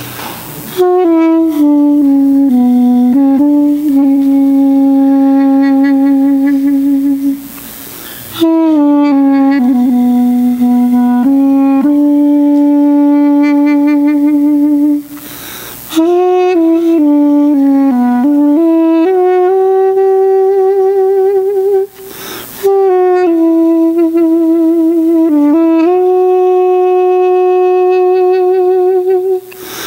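Duduk playing a slow solo melody of long held notes with vibrato. The phrases break off about every seven seconds for a quick breath.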